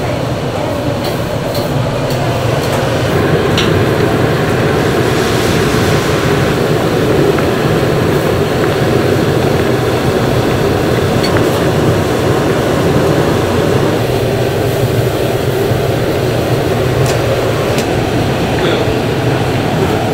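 Thin noodles deep-frying in a wok of hot oil, a steady bubbling sizzle over the low rush of a gas wok burner.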